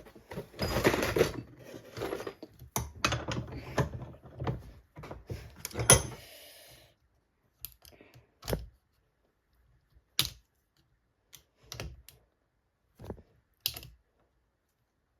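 Scrap brass and copper pieces being handled and sorted: rapid clicking and rattling for about six seconds, then separate sharp clicks and knocks a second or two apart.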